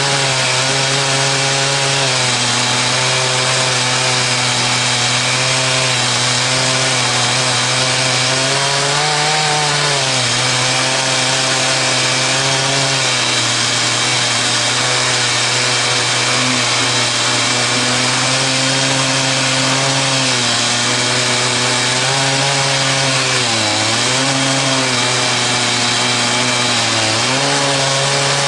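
Chainsaw running at high throttle in an Alaskan chainsaw mill, ripping a log lengthwise into 1-inch boards. The engine note holds steady and sags briefly in pitch about three times, near the middle and twice near the end.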